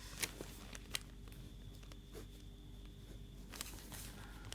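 Faint scattered taps and scratches of writing, over a low steady hum.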